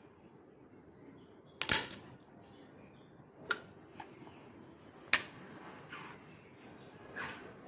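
A few sharp slaps and clicks on a ceramic tile floor, spaced irregularly, from a hand patting the tiles and a dog's paws moving on them.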